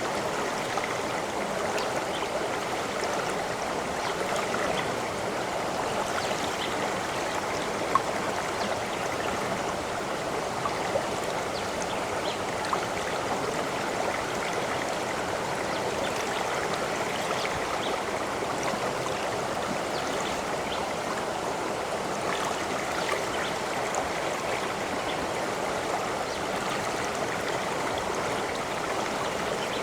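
Steady running water of a stream, a continuous babbling rush with a few brief, louder ticks of splashing here and there.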